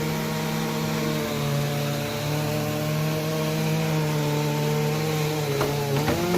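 A two-stroke chainsaw running steadily at high revs, its pitch sagging slightly now and then. Near the end the pitch wavers and there are a few knocks.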